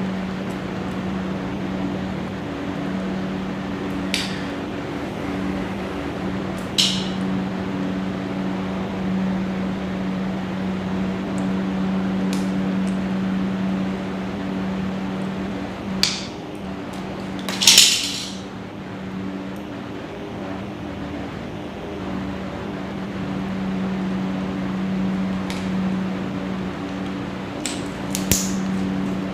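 Sharp clicks and snips of a network cable being worked by hand with a wire cutter and an RJ45 crimping tool, with one louder rasping crunch a little past halfway. A steady low hum runs underneath.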